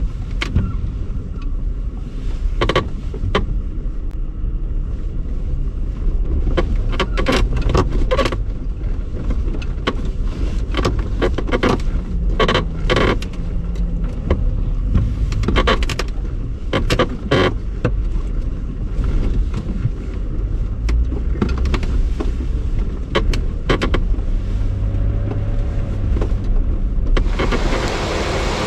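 4x4 vehicle crawling over a rough, rocky mountain trail: a steady low rumble of engine and tyres with frequent irregular knocks and rattles as the body and load jolt over rocks. A louder hiss comes in near the end.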